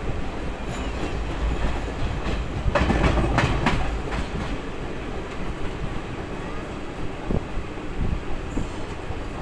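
Express train running at speed, heard from inside a passenger coach by the window: a steady rumble of wheels on rails, with a louder run of clattering wheel clacks about three seconds in and a few single knocks near the end.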